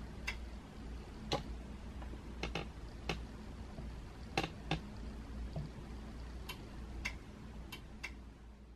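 About a dozen light clicks and taps at irregular intervals from fingers tapping on a smartphone, over a faint steady low hum.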